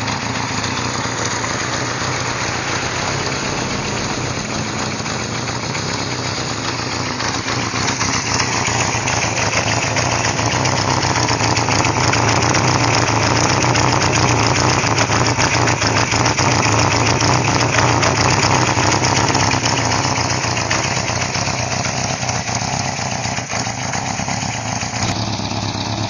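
1977 Honda CB550F's air-cooled inline four-cylinder engine idling steadily through its single silencer while it warms up after a cold start in snow. The sound is louder for a stretch in the middle, when heard close to the exhaust outlet.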